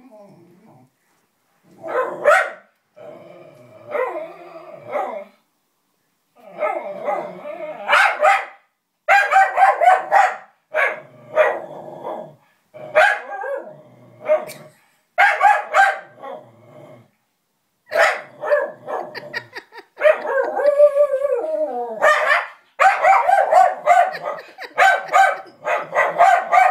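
Pet dog barking repeatedly in clusters of sharp barks with short pauses between them, upset by a monkey puppet; about twenty seconds in, one longer cry falls in pitch.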